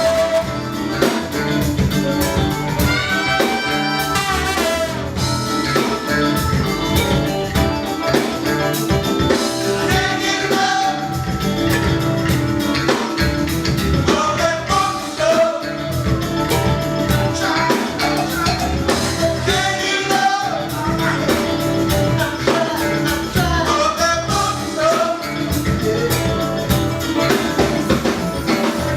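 Live band playing a song at full volume: drum kit, bass and guitar, with a voice singing over them.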